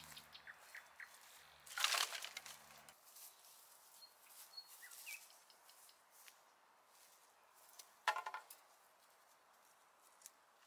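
Dry firewood branches dropped onto the ground with a short crackling clatter about two seconds in, then a second brief clatter of wood about eight seconds in. Faint bird chirps in between.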